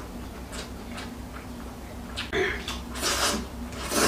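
A person slurping fried instant noodles off chopsticks and chewing, with several short slurps, the loudest about two and three seconds in.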